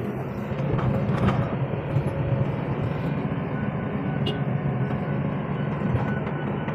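Hydraulic excavator's diesel engine running steadily, heard from inside the operator's cab, as the boom brings the bucket down in front of the cab.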